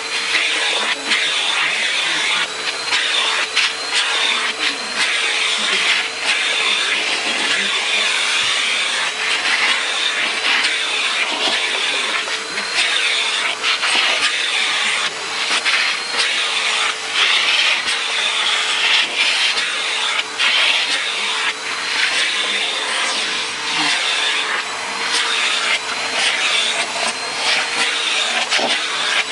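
Electrolux vacuum cleaner running steadily, its motor hum wavering slightly, with frequent short scraping and catching sounds as the nozzle is drawn over a cat's fur.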